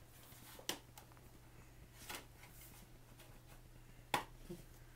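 Faint handling noises of a small book being held and turned in the hands, soft rustles and taps with two sharper clicks, about a second in and near the end.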